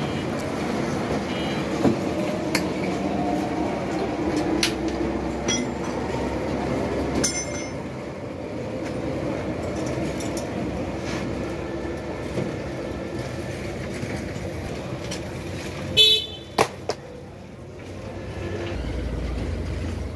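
Street traffic noise with vehicle horns sounding. About sixteen seconds in, a few sharp ringing clinks are the loudest sounds.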